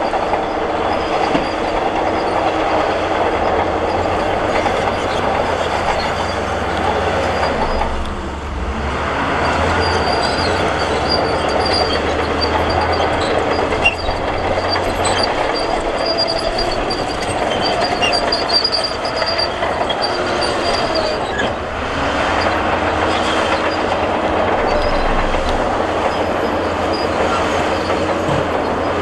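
Crawler bulldozer at work: its diesel engine runs steadily under load while the steel tracks clank and squeal, easing briefly twice.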